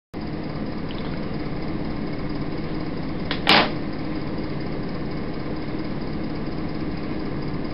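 Steady hum and hiss of an old videotape recording, with one short, loud noise about three and a half seconds in.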